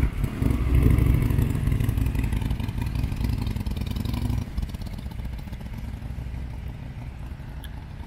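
Harley-Davidson V-twin motorcycle pulling away at low speed. The engine is loud for the first four seconds or so, then fades steadily as the bike rides off into the distance.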